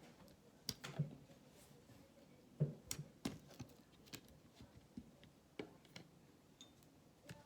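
Bead-filled slime, with microbeads and fimo slices, being stretched and squished by hand. It gives faint, irregular soft clicks and squishes, with few crackles.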